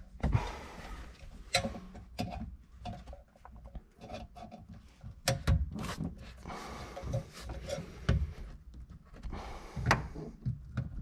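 Hands working a car's factory stereo amplifier loose and unclipping its wiring harness connector with pliers. Scattered clicks, knocks and rubbing of metal and plastic parts are heard, with a few sharper knocks.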